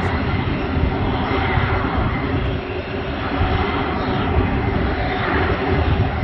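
A parked Boeing C-17A Globemaster III with its turbines running: a steady whine over a broad, uneven rumble.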